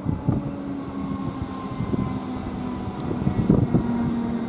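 Comeng electric suburban train pulling into the station, its motors humming at a steady pitch that falls slowly as it slows to stop. Wheels knock and clatter over the rails, growing louder as it nears.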